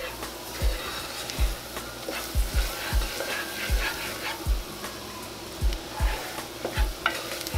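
Flour, onions and garlic sizzling in hot frying grease as a spatula stirs the roux in the pot, the flour cooking to brown for gravy. Background music with a low thumping beat plays under it.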